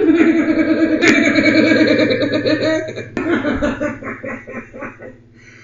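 A sleepwalker's voice: drawn-out, slurred sleep-talk that the recogniser could not make out into words, then choppier vocal sounds from about three seconds in.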